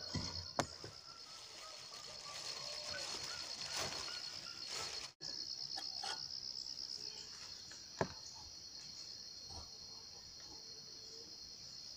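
Steady, high-pitched pulsing trill of insects in the forest, with a few sharp knocks as a metal pot and camp stove are handled, the loudest about half a second and eight seconds in. The sound cuts out for an instant about five seconds in.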